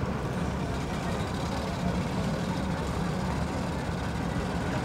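An engine idling steadily, a low, even hum with no changes.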